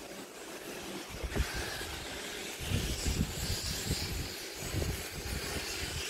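Wind buffeting the microphone in irregular low rumbling gusts over a faint steady hiss.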